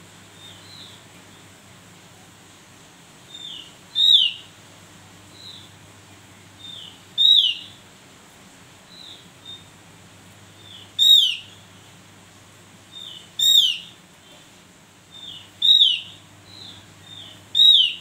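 Javan grey-throated white-eye (opior jawa) calling: six loud, short notes that fall sharply in pitch, a few seconds apart, with softer call notes between them.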